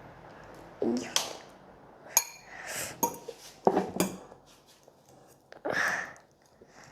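Fork mashing bananas in a bowl: several irregular sharp clinks of the metal fork striking the bowl, a few with a brief ringing tone, between softer squishing and scraping.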